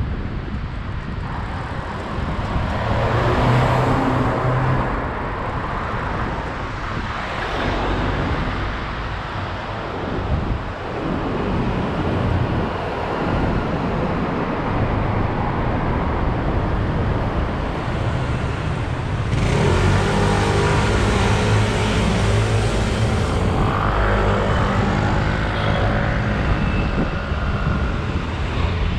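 City road traffic heard from a bicycle: a steady wash of passing motor vehicles, with wind buffeting the microphone. A louder engine passes close by about two-thirds of the way through.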